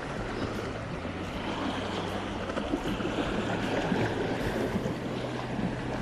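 Sea waves washing and wind noise at a rocky shore, with a steady low hum underneath.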